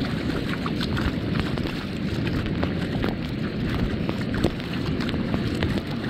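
Wind buffeting the microphone as a steady low rumble, with short splashes from a toddler's bare feet wading through shallow water.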